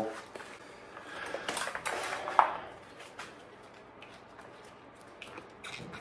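Rustling and small metallic clicks of a bicycle cable and parts being handled, with one sharp click about two and a half seconds in, then faint scattered ticks.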